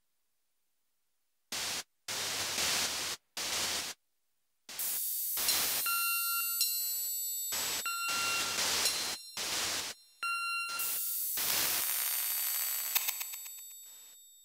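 Electronic noise music: blocks of harsh static hiss that switch on and off abruptly, after a second or so of silence. From about five seconds in, thin high electronic tones and short beeps sit over the hiss, and it fades out near the end.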